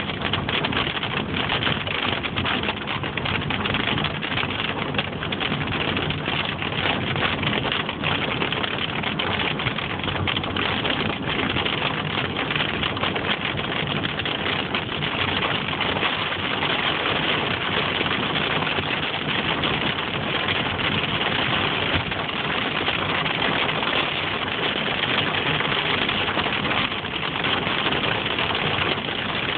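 Heavy rain beating on a moving car's windshield and roof, mixed with tyre and road noise on the flooded highway, heard from inside the cabin. A dense, steady hiss full of fine rapid hits.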